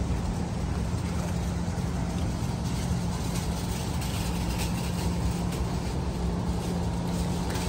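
Steady low mechanical hum with a constant drone, like machinery running, that fades near the end.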